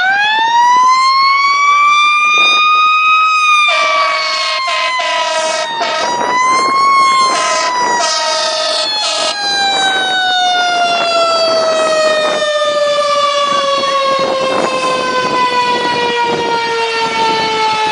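Fire engine siren winding up to a high wail, then slowly falling in pitch with a brief rise again about six to seven seconds in. Short blasts of the truck's horn cut in two or three times between about four and nine seconds in.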